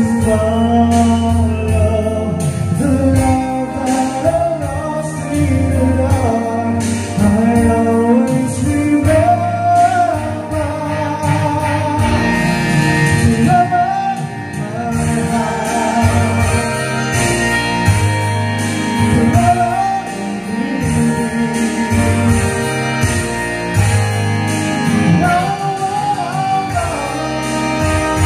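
A karaoke song playing from a Platinum Cello 2 karaoke player, with a voice singing the melody over the backing track.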